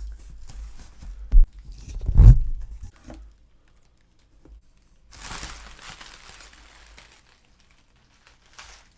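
Cardboard box and plastic packaging being handled and opened: crinkling and tearing, with two heavy thumps about a second and a half and two seconds in, and another rustling tear around five seconds in.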